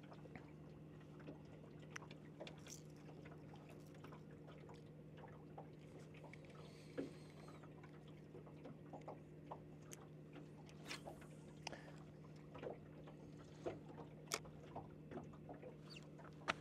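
Near silence: a faint steady electric hum, with scattered light clicks and small water sounds as rod, reel and tackle are handled in a small fishing boat.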